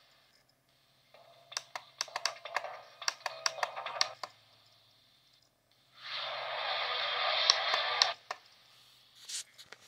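DVD menu music and sound effects played from the screen's speaker in two short bursts as the menu changes pages. The first is full of rapid clicks, the second is denser and steadier, with near quiet between them and one sharp click near the end.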